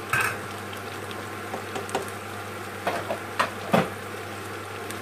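A pot of noodles boiling and a pan of vegetables sizzling on the stovetop, a steady bubbling under a low hum. Metal bowls clink and knock a few times: once just at the start, then three times close together about three to four seconds in.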